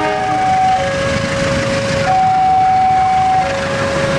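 Railway level-crossing warning alarm sounding an alternating two-tone, low and high notes of about a second and a half each, over the noise of a diesel locomotive and train running up to the crossing.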